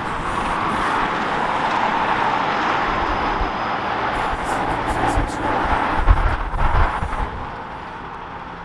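REM Alstom Metropolis electric light-metro train passing close beneath, a steady rushing of wheels on rail that builds, holds for a few seconds, then fades. A few low thumps come about six to seven seconds in.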